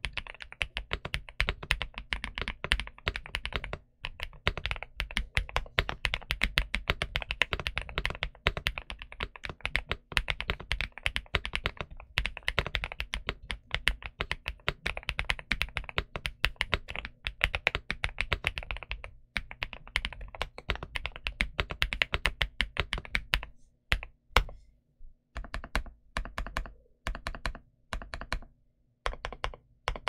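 Mechanical keyboard typing: a GMK67 with Boyi Flaming Skull Shine Purple switches and dye-sub PBT Cherry-profile keycaps, keys clacking in a fast, steady run, thinning out to slower separate presses over the last several seconds.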